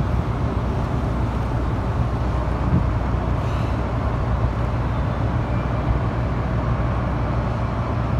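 Low, steady engine drone that holds at one even pitch without revving.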